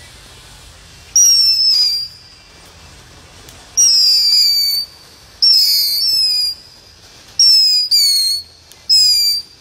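Ground fountain firework spraying sparks and letting out seven loud, shrill whistles, some in close pairs. Each whistle lasts a second or less and slides slightly down in pitch.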